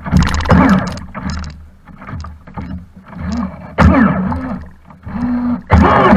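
Blackjack 42 RC boat's brushless electric motor revving in a string of short throttle bursts, its pitch rising and falling with each one, while the propeller churns and sprays water close to the boat-mounted camera.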